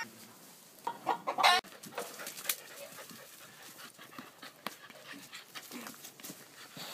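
A few short animal calls about a second in, the last one the loudest, then faint scuffling and small sounds while a puppy is handled.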